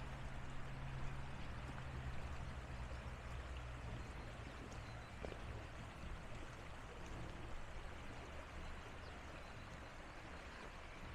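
Rainwater torrent in a valley streambed flowing steadily, a continuous rushing with a low rumble underneath.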